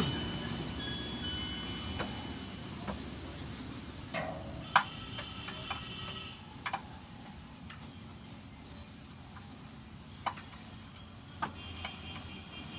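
Scattered metallic clinks and taps, about ten at irregular intervals over low background noise, a few leaving a short ring; no steady engine running.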